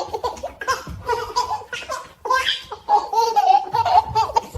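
Baby laughing in a run of high-pitched giggles and belly laughs, with a short break about two seconds in and a longer held laugh near the end.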